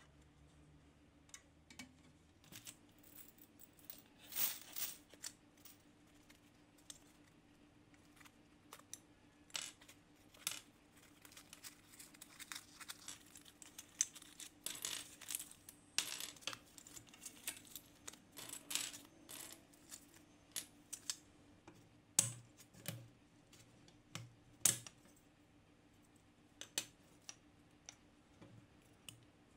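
Irregular clicks, taps and light clatter of small plastic and metal parts of a vintage IBM Model F XT keyboard being handled and worked loose on a wooden table. A couple of sharper knocks come late on.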